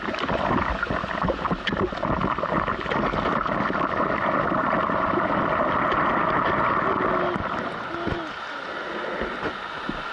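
Sea water sloshing and splashing close to the action camera's microphone, with a rushing wash of noise. Sharp knocks and splashes in the first two seconds give way to a steadier rush that eases about eight seconds in.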